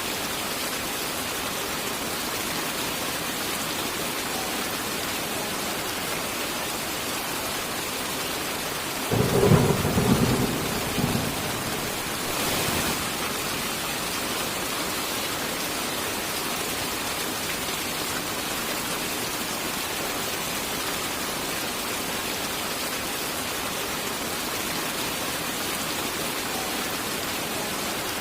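Steady heavy rain hissing throughout, with one thunderclap about a third of the way in: a sudden low crack and rumble lasting around three seconds, then a fainter swell shortly after.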